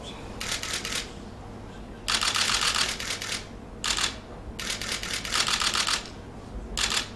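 Repeated bursts of rapid clicking or rattling, each lasting from a fraction of a second to over a second, separated by short pauses.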